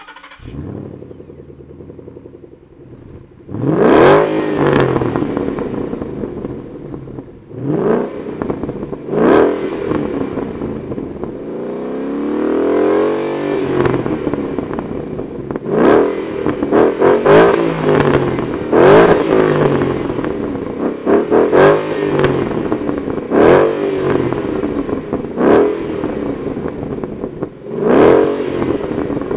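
Fifth-generation Ford Mustang's engine breathing through a newly fitted aftermarket exhaust. It idles for a few seconds, then is revved about a dozen times in sharp blips that each rise and drop back to idle, with one slower, longer rev near the middle.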